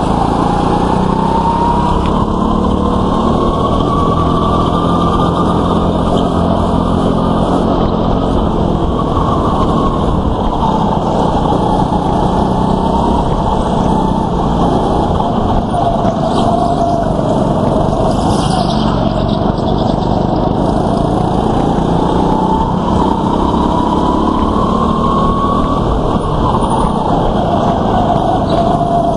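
Go-kart engine running hard, heard from the driver's seat, its pitch rising and falling as the kart speeds up and slows through corners, with other karts running close by.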